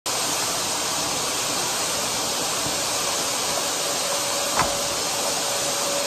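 Canister vacuum cleaner running with a steady rushing hiss of suction as its floor nozzle works the carpet. A faint thin whistle joins in a little after halfway, and there is a single click.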